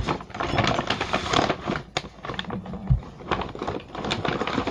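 Irregular clicking and rattling of small hand tools being handled and moved about.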